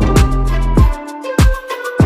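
Background music with a steady beat: sustained notes over a deep bass, with a sharp percussive hit about every half second.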